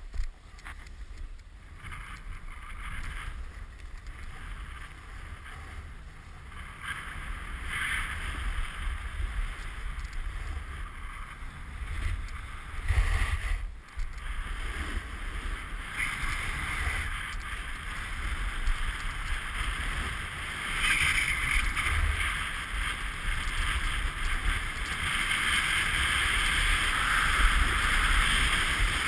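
A snowboard sliding fast over a bumpy, cut-up piste: the board scraping and hissing across the snow, with wind buffeting the camera's microphone. The hiss grows louder toward the end as speed builds, with a brief lull about 14 seconds in.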